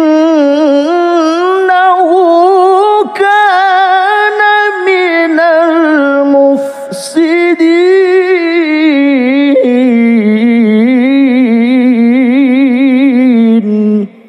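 A male qari reciting the Quran in melodic tilawah style: one long, loud, ornamented vocal line with rapidly wavering pitch and a short break near the middle. It stops abruptly just before the end.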